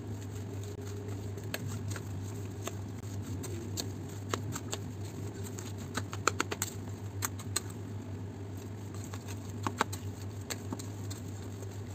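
Mashed potato being mixed with diced onion and carrot in a stainless steel bowl by hand and then with a plastic spoon: scattered light clicks and taps against the metal bowl, over a steady low hum.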